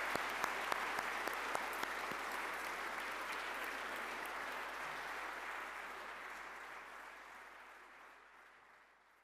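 A large audience applauding, dense steady clapping that fades out over the last few seconds.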